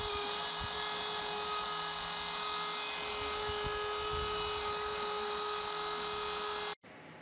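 CNC router spindle running steadily as its bit carves into a pine sign board through a vinyl paint-mask film: a constant high whine with several steady tones over a noisy hiss. It cuts off suddenly near the end, leaving only a low, quiet background.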